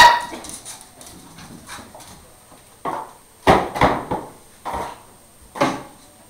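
Border terrier puppy barking: the end of one bark right at the start, then about five short barks spread over the second half.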